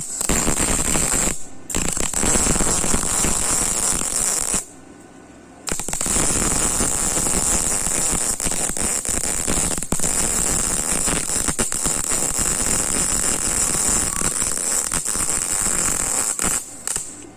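Electric arc welding on 1×2 iron box section: the arc gives a loud, steady sizzling crackle. It breaks off briefly about a second and a half in, pauses for about a second around five seconds in, then runs on and stops shortly before the end.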